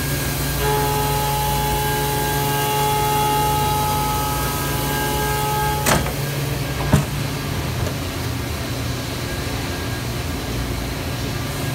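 Mazak FH480X horizontal machining center running under coolant: a steady whine from the spindle and cutter over a constant hiss and low hum. The whine stops about six seconds in, and two sharp clicks come about a second apart.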